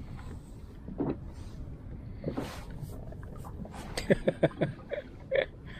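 Steady wind and water noise around a fishing kayak, with a knock about a second in, then a quick run of sharp knocks and clatters near the end as the fishing rod and reel are handled right beside the microphone.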